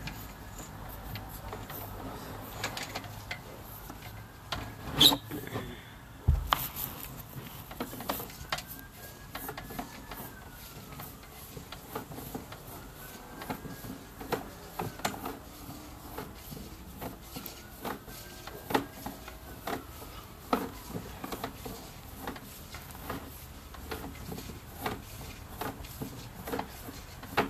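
Handling noise as a sewer inspection camera's push cable is fed into the sewer line: irregular clicks and knocks, the sharpest about five seconds in, with a low thud just after six seconds.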